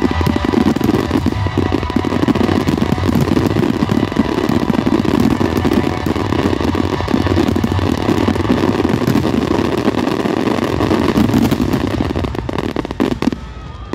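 Fireworks display in a dense barrage: many aerial shells bursting and crackling in rapid, overlapping succession as one continuous din, the closing barrage of the show, dying away near the end.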